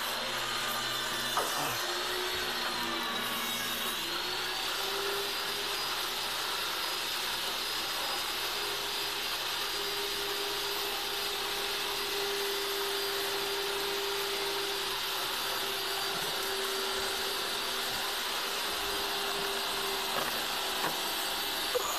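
Steady whirring of a running motor under a broad hiss, with a constant whine whose pitch steps up a little a few seconds in; a few faint knocks.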